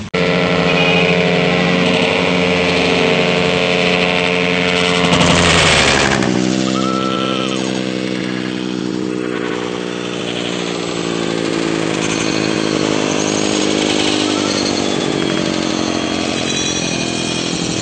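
Motorcycle engines running at high revs, loudest about five to six seconds in, their pitch then slowly falling away.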